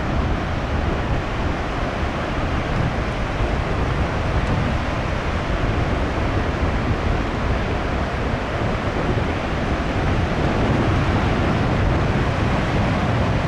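High surf from a typhoon-driven swell breaking on the coast, a continuous wash of noise with wind buffeting the microphone; it grows a little louder about ten seconds in.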